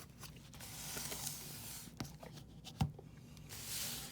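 Cardboard card box being handled: soft rubbing and sliding in two stretches, with a couple of light knocks between them.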